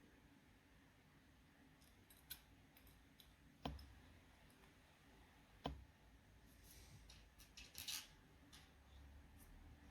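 Faint scattered clicks with two sharp taps about two seconds apart and a brief flurry of clicks near the end, the sound of small hard objects being handled.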